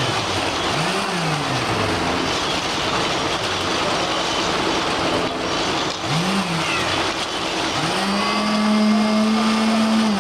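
Engine of a construction machine at a concrete pour revving up and dropping back a few times, then held high for about two seconds near the end, over a steady mechanical rumble.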